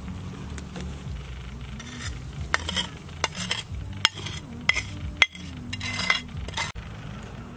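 A metal spoon scraping and knocking against a bowl while sugar is scraped out of it: a run of short scrapes and sharp clinks from about two seconds in until near the end.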